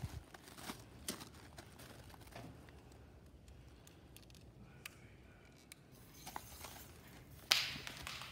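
Light clicks and handling sounds, then about seven and a half seconds in an Axe body-spray aerosol can starts hissing without stopping, its nozzle held down by rubber bands; the hiss is loudest at its start and then fades.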